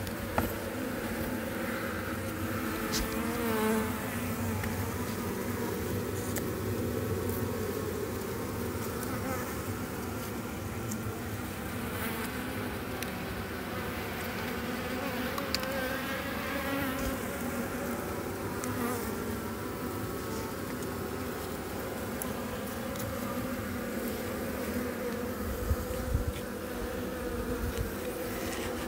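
A large honeybee colony buzzing over its opened comb nest in a steady, dense hum. Now and then a single bee whines past close by.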